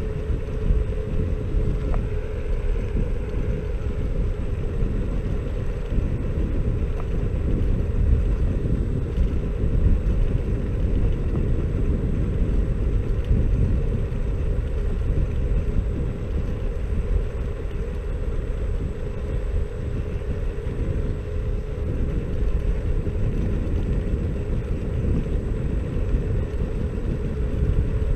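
Xiaomi Mi Scooter Pro 2 electric scooter riding along an asphalt road: a steady low rumble of tyre and wind noise, with a thin steady whine above it.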